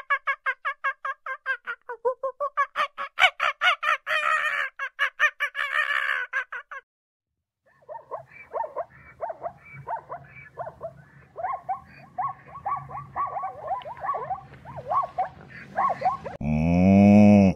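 A macaque gives a fast run of repeated high chattering calls, about five or six a second, for roughly seven seconds. After a short pause, zebras give irregular rougher calls. About a second before the end, a cow starts a loud, low moo.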